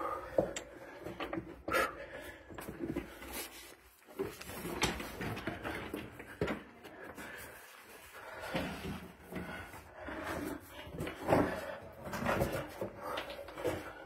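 Irregular scrapes and knocks of someone moving over loose rocks and against the walls of a narrow cave passage.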